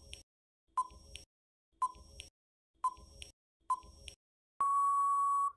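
Quiz countdown-timer sound effect: four short electronic beeps about a second apart, then one long steady beep about a second long, marking time up.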